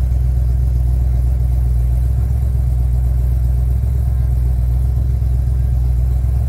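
1972 De Tomaso Pantera's Ford 351 Cleveland V8 idling steadily, a low, even engine note.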